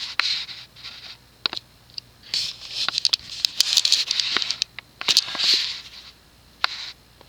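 Rustling and scraping handling noise in several short stretches, with scattered light clicks, over a faint steady low hum.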